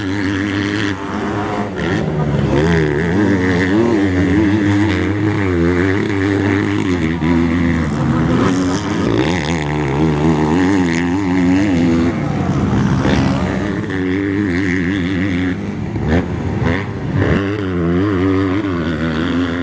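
Motocross motorcycle engines revving, rising and falling in pitch again and again as the bikes accelerate out of corners and back off.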